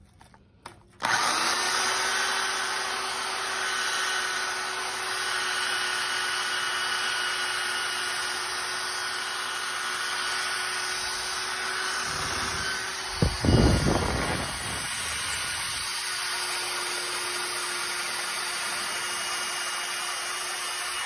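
Corded electric drill spinning a wire wheel against the rusty steel griddle top, brushing the rust off down to bare metal: a steady motor whine under the scratch of the wire, starting about a second in. About two-thirds through it gets louder and rougher for a couple of seconds.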